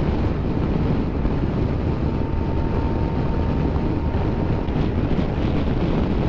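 Steady wind rush on the microphone with engine and road noise from a BMW F700GS motorcycle riding at speed.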